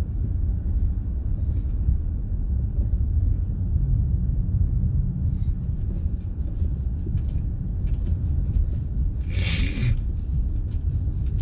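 Steady low rumble of a car's engine and tyres heard inside the cabin, driving slowly on a snowy road. About nine and a half seconds in there is one short hiss.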